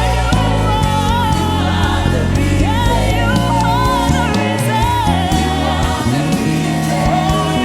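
Live gospel worship music: a lead singer and choir singing over keyboard, bass and drums.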